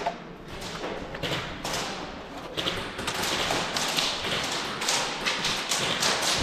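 Irregular taps and thuds over a rustling noise that grows a little louder partway through.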